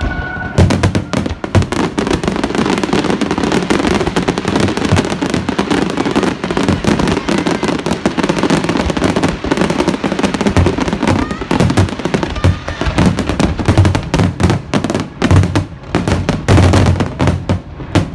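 Fireworks display going off in a dense, near-continuous barrage of bangs and crackles, with heavy low booms toward the end.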